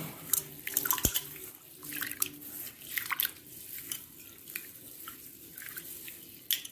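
A hand swishing and rubbing split black gram with skins in water in a steel plate, washing the lentils: irregular sloshing and splashing, with one sharper knock about a second in.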